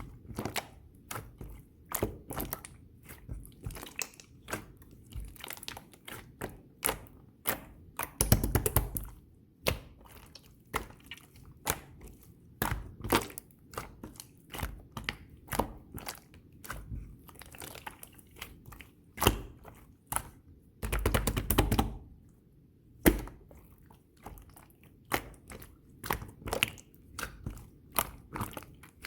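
Orange marbled pearl slime being squeezed and poked by hand, giving sharp clicky pops at irregular intervals, with two longer dense runs of pops, one about eight seconds in and another past twenty seconds.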